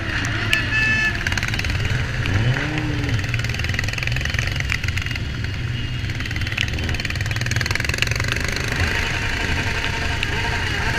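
Several motorcycle engines running steadily at low revs, with a few short rises and falls in pitch and a brief high steady tone about a second in.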